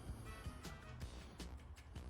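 Quiet background music with a steady beat and a bass line.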